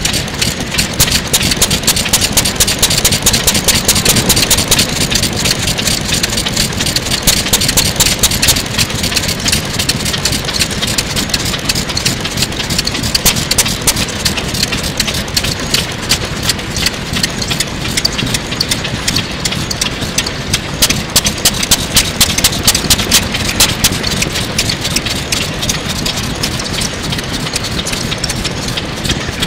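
Circa-1935 NISHIFUJI single-cylinder, hopper-cooled farm kerosene engine running steadily, with a rapid, even exhaust beat.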